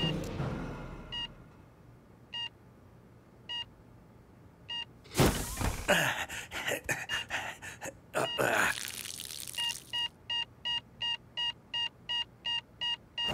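Heart monitor beeping, slowly at first, about one beep every second and a bit, then quickening to about three beeps a second near the end as the patient's heart rate picks up. Two loud noisy bursts break in about five and eight seconds in.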